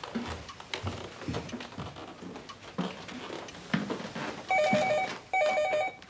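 Telephone ringing twice with a rapid electronic warble, each ring about half a second, after a few seconds of soft scattered knocks and clicks.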